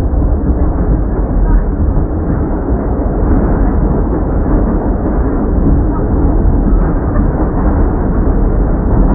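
NYC subway train running, a loud, steady, muffled rumble without breaks.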